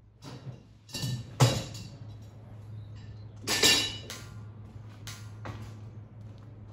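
Steel being struck or knocked together: a few sharp metallic clanks that ring on briefly, the loudest about a second and a half in and another about three and a half seconds in, over a steady low hum.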